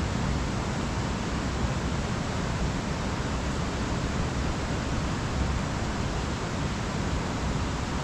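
Steady rushing of a mountain river flowing below a bridge: an even hiss of water that holds the same level throughout.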